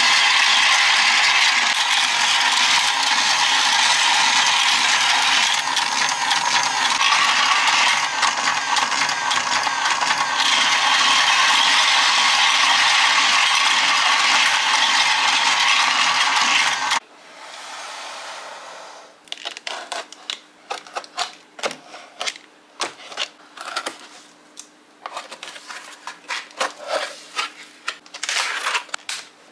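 Battery-powered Spider-Man escalator track toy running: the motorised plastic staircase makes a loud, steady ratcheting clatter as it carries the figures up. About 17 seconds in it cuts off suddenly, giving way to the crinkles and sharp clicks of cardboard and plastic packaging being pulled open.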